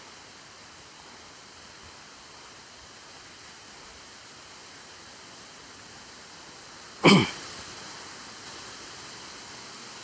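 Steady rushing of a waterfall's falling water. About seven seconds in, a brief voice sound falls in pitch.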